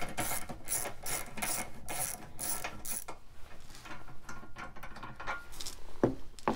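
Hand ratchet with a 10 mm socket clicking quickly and evenly as it backs out the bolt holding the trailer wiring plug, for about three seconds. Then quieter handling of the tool and parts, and a single thump near the end.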